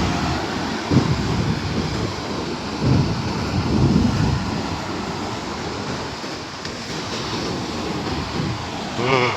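Wind buffeting the microphone over the wash of sea surf, a steady noisy rumble that swells in gusts. Just before the end a brief wavering pitched cry sounds.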